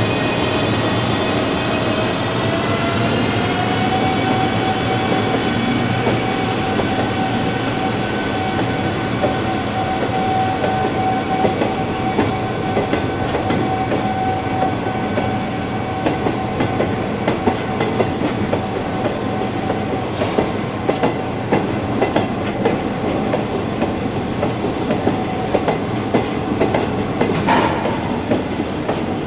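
EF210 electric freight locomotive passing with a whine from its inverter-driven traction motors that rises in pitch over the first few seconds, then holds steady and fades out. Behind it, the wheels of empty long-rail flat wagons rumble and clack rhythmically over the rail joints, the clatter growing denser in the second half.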